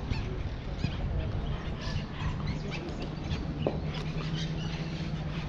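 Small birds chirping in short, scattered calls over a steady low rumble of outdoor background noise, with a low hum that comes in a little past halfway.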